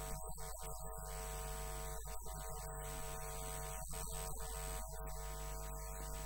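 Steady electrical mains hum with a buzz of higher overtones over hiss.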